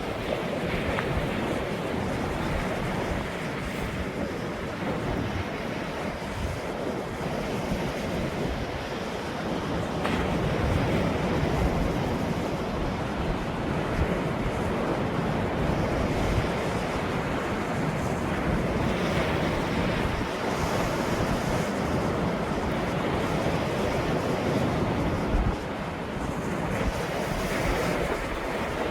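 Ocean surf washing in continuously, swelling slightly a few times, with wind buffeting the microphone.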